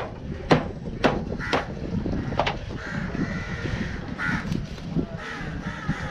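A wooden club striking the spine of a large fish knife to drive it through a fish, five sharp knocks about half a second apart that stop about two and a half seconds in. After that, crows caw in the background.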